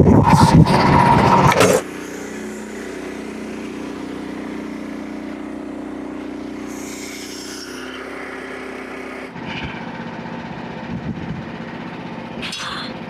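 Portable sawmill's small gasoline engine running loud under full throttle for about the first two seconds, then dropping suddenly to a steady idle.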